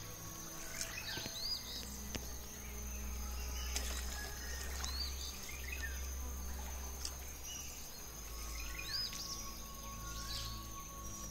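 Tropical forest ambience: a steady high-pitched insect trill with birds calling now and then, short whistled notes that rise and fall, heard a handful of times.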